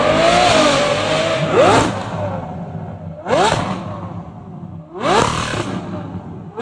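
V12 engine exhaust revving: the note climbs and holds high, then three sharp throttle blips rise quickly and fall away between them.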